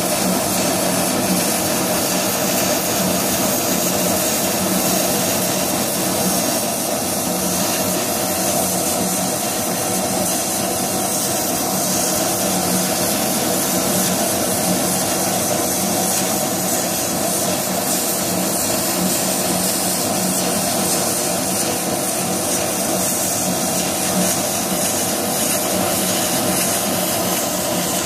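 High-speed laser cutter running as it cuts a pattern in a paper sheet: a steady rushing noise with a low hum underneath, unchanging throughout.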